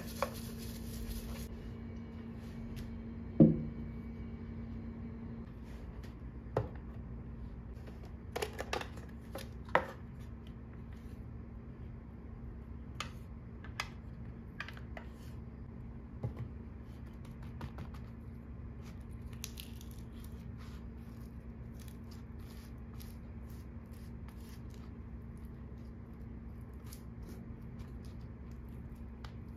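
Food-preparation handling: scattered clicks, taps and light scrapes of a spatula, spoon and foil-lidded tub against a pan and plate, with one sharp knock about three and a half seconds in, over a steady low hum.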